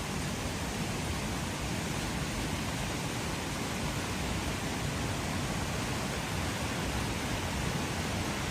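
Steady rainfall, an even hiss with no separate drops or other events standing out.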